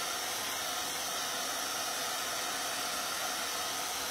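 Handheld hair dryer blowing steadily on a painted wooden sign, drying the fresh exterior latex navy blue paint faster.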